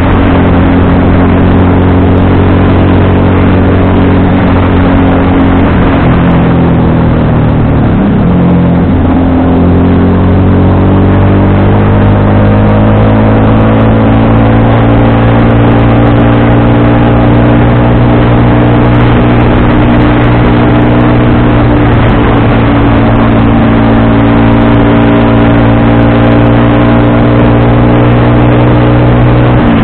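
FKM Victorino 250i V-twin motorcycle engine pulling at road speed. About six seconds in its pitch sags as the bike slows, then climbs steadily as it accelerates again, with a brief drop near the end like a gear change.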